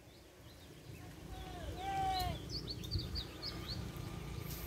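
Birds chirping in a quick run of short high calls, after a longer call that rises and falls about two seconds in, over a steady low rumble.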